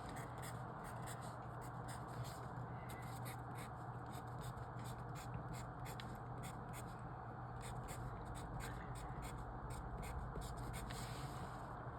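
Pen writing on paper, marking entries in a logic-puzzle grid: many short, faint scratches over a steady low hum.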